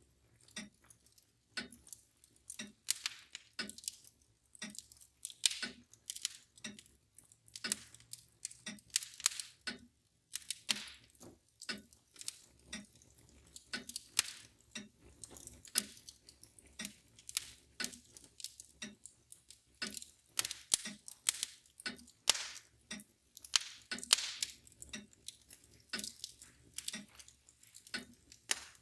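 Wood fire crackling, with irregular pops and snaps, over the steady ticking of a mantel clock.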